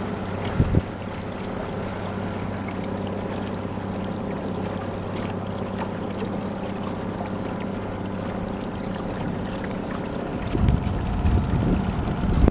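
Small boat motor running steadily at constant speed as the boat cruises, with a brief thump under a second in. Near the end, wind buffets the microphone.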